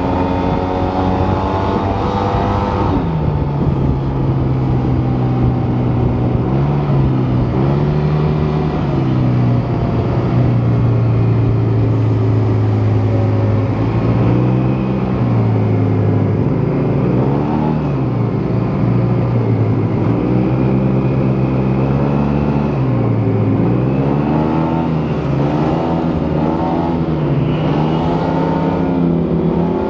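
Yamaha T-Max 530 scooter's parallel-twin engine through its stock exhaust, running on the move. Its pitch holds steady for stretches and dips and comes back up several times as the throttle is eased and reopened.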